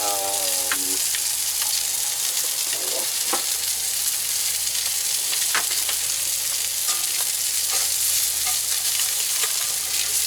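Striped bass fillets sizzling steadily in a hot pan, with a few light ticks and pops from the fat.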